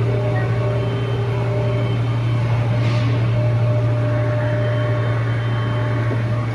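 Steady, loud low machine hum, with a brief hiss about three seconds in.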